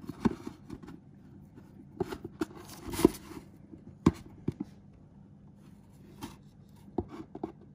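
A hand screwdriver turning a screw down into a skull mask: irregular small clicks and short scraping creaks, the loudest about three seconds in and another sharp one about a second later.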